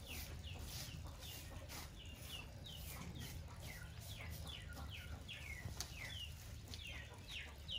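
Chicks peeping: a continuous run of short, high chirps, each falling in pitch, about three a second.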